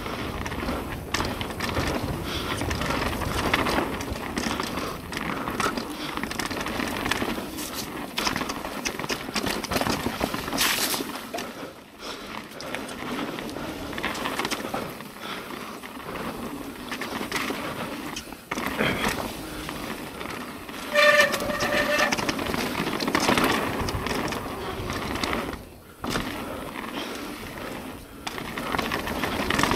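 Mountain bike riding a dirt trail: tyres on dirt and the bike rattling over bumps, with many sharp knocks and clicks and rushing air noise. About two-thirds of the way through there is a short, steady, high squeal from the brakes.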